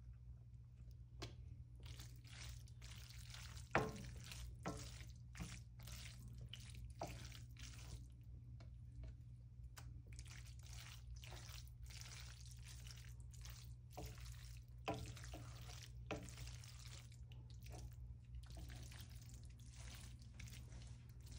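Wooden spoon stirring egg noodles with butter and cottage cheese in a copper-coloured frying pan: soft wet squishing and scraping, with scattered knocks of the spoon against the pan, the loudest about four seconds in. A low steady hum runs underneath.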